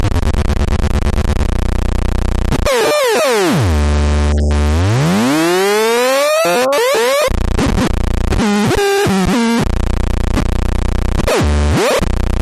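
Electronic noise box putting out a harsh, buzzy synthesizer tone. Its pitch holds steady, then sweeps down low and back up as a knob is turned, and then jumps choppily between tones as the controls are worked.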